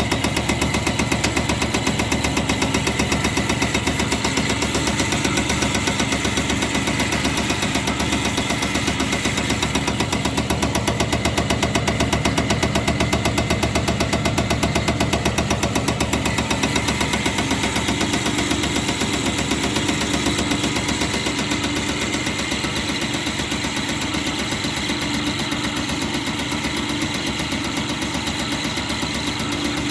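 Caterpillar HEUI injector test bench running a test: the bench's pump motor runs steadily while the HEUI injector fires in a rapid, even ticking. It eases slightly in volume about two-thirds of the way through.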